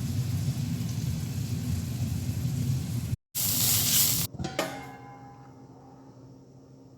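Food sizzling in a hot pan as a steady noise, broken by a short cut. About four and a half seconds in there is a sharp knock with a ringing tone that fades away.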